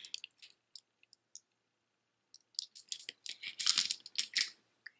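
Costume jewelry being handled: a few light clicks, then about two seconds of crinkling and rustling starting a little before halfway.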